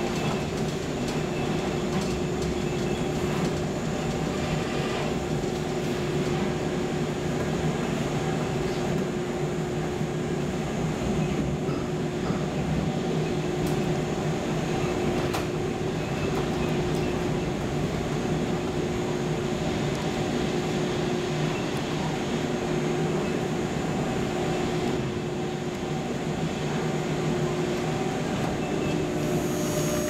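Inside a car of Düsseldorf Airport's suspended people mover (SkyTrain) while it is moving: a steady running rumble with a constant hum.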